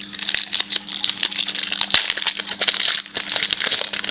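Baseball card packs and cards being handled by hand during a box break: a dense crackle of rustling and many quick clicks, under a faint steady electrical hum.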